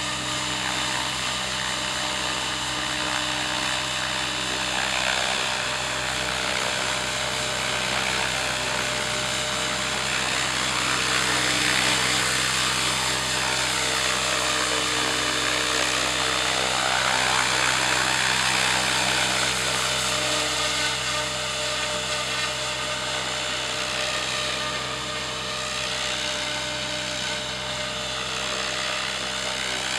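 Radio-controlled model helicopter flying about: a steady motor and rotor whine whose tone sweeps up and down as it moves around.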